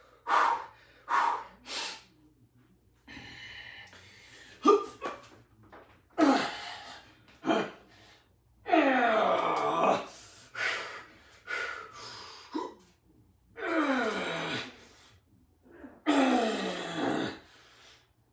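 A man's forceful breathing and strained grunts through a heavy set of dumbbell presses with 70-pound dumbbells. Loud exhalations come every second or two, and several are drawn-out groans that fall in pitch.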